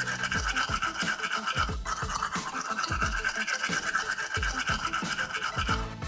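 Toothbrush scrubbing a die-cast toy car body wet in a plastic tub, a fast scratchy back-and-forth rub that stops just before the end, scrubbing off the old paint. Background music with thudding bass beats underneath.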